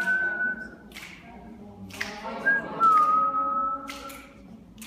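A group of people whistling and voicing long held notes at different pitches at once, a clashing chord. The highest whistled note stops just under a second in. Another starts about two and a half seconds in, dips slightly in pitch and holds until about four seconds in, with a few short sharp noises in between.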